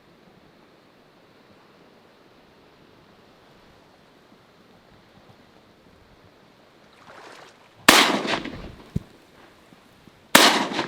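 Two shotgun shots at a mallard, about two and a half seconds apart: the first misses as the duck catches the wind, the second brings it down. Before them only a faint steady hiss of wind.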